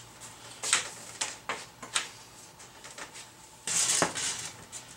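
Handling noises from a PVC-pipe frame being worked: a few sharp plastic clicks and knocks in the first two seconds, then a brief louder scrape or rustle near the four-second mark.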